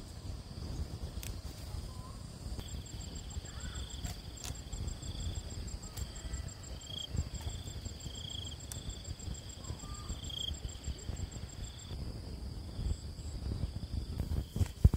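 Insects calling outdoors: a steady high trill, joined from about three seconds in until about twelve seconds by a rapid pulsed chirping. Irregular low rustling runs underneath, and a single sharp knock comes near the end.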